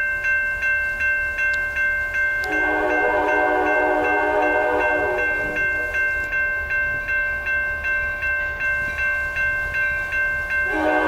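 Railroad crossing bell ringing steadily, about three strikes a second. Over it the approaching CSX GP40-2 locomotive's air horn sounds one blast of about three seconds a few seconds in, and starts another near the end.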